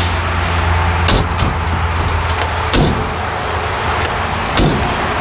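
Steel cab door of a 1954 Ford F100 pickup being shut, with three sharp knocks spaced about a second and a half apart over a steady low rumble.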